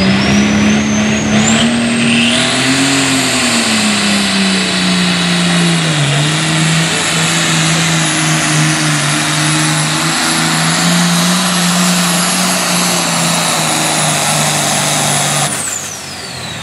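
International Harvester light pro stock pulling tractor's turbocharged diesel engine running flat out under the load of the pulling sled, with a high-pitched turbo whine that climbs over the first few seconds and then holds. About fifteen seconds in, the engine is shut down at the end of the pull and the whine winds down.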